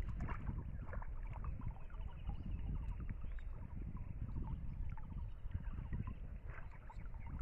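Water sloshing and lapping around a person wading chest-deep through floodwater, with many small splashes as his body and arms move through it.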